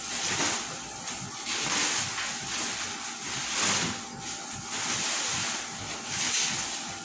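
Black plastic bubble-wrap packaging rustling and crinkling in irregular swells as it is cut open and pulled off a cardboard box.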